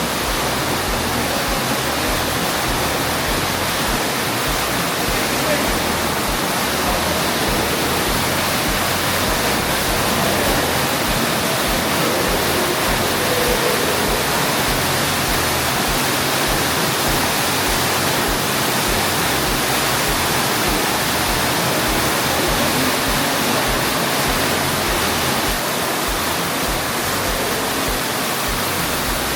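Underground waterfall in a limestone cave crashing into a pool, a steady heavy rush of water.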